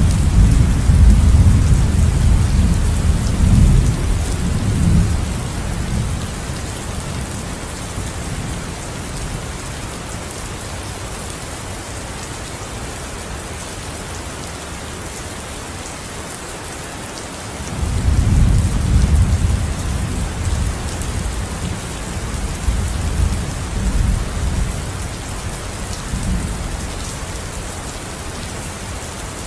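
Steady heavy rain, with rolls of thunder: one rumbling at the start and dying away within a few seconds, another breaking in about two-thirds of the way through and rumbling for several seconds.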